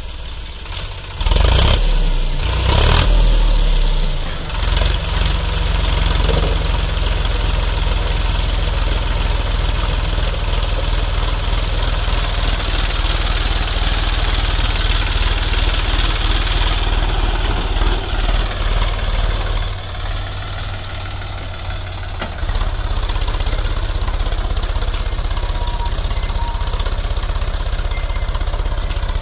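Sonalika tractor's diesel engine running hard under load as it tries to drag a loaded trolley out of deep sand. It revs up sharply about a second in, eases off around twenty seconds in, and picks up again a couple of seconds later.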